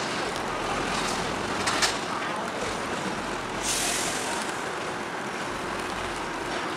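Steady harbour noise of boat engines running, with wind on the microphone and a short hiss a little past halfway.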